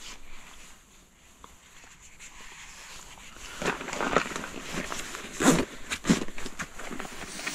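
Fabric and clothing rustling as camping gear is handled, starting a few seconds in, with two sharp knocks about half a second apart near the end.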